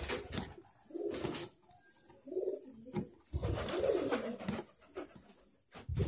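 A dove cooing several times, with a metal fork stirring and scraping in a plastic bowl of thick liquid.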